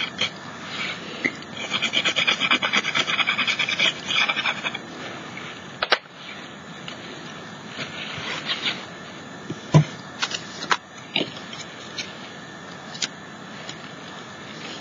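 Soft pastel being rubbed into a rough, textured plaster canvas: quick back-and-forth scraping strokes, brisk in the first few seconds and softer later. A few light knocks as things are handled on the table, the loudest about ten seconds in.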